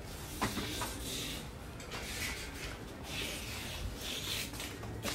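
Rustling and scuffing of someone walking, in patches, with a couple of light clicks in the first second.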